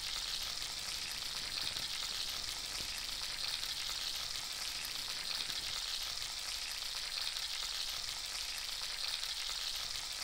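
Salmon steaks frying in a hot pan, a steady sizzle.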